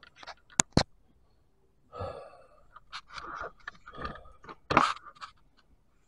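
A person's heavy breathing in short, breathy puffs, a few about a second apart, after two sharp clicks close together just over half a second in.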